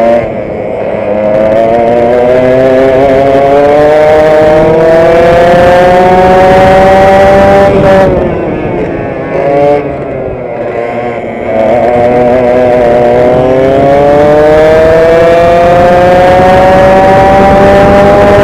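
Vintage direct-drive racing kart's two-stroke engine heard onboard at full throttle, its pitch climbing steadily along a straight. About eight seconds in the note drops sharply as the driver lifts for a corner, stays low for a few seconds, then climbs again and levels off near the end.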